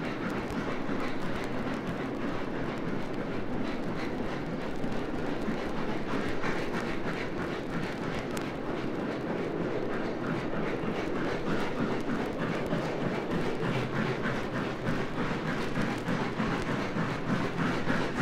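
Steam-hauled train running, a steady rumble of rail and machinery noise with many small clicks throughout.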